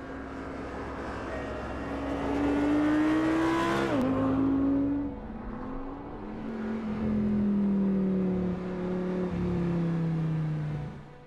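A car engine rising in pitch as it approaches and dropping sharply as it passes about four seconds in, then a lower engine sound sliding slowly down in pitch and fading near the end.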